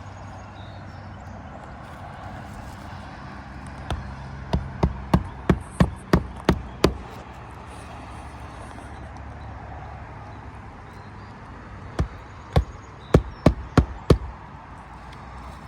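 Roofing hammer driving nails through an asphalt shingle: a quick run of about eight sharp strikes, a pause of several seconds, then about six more, over a steady low hum.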